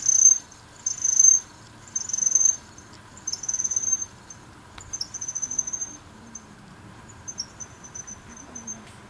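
Sanyo 6V 2.4W hub dynamo squealing as it spins: a high-pitched squeal that comes round about once a second, fading, spacing out and breaking up as it slows. It is a bearing noise that relubricating the bearings has not cured.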